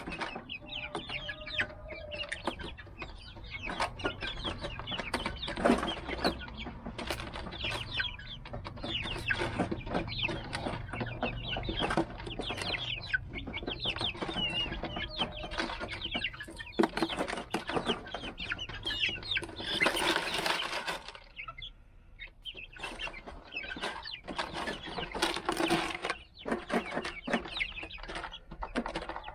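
Young Rhode Island Red chickens calling with many short, high, falling peeps and clucks while pecking at a plastic bottle feeder, their beaks tapping it sharply over and over. A short rustling burst about two-thirds of the way through.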